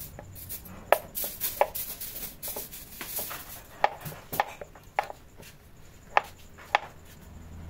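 Knife chopping on a cutting board: a series of sharp, irregularly spaced strokes.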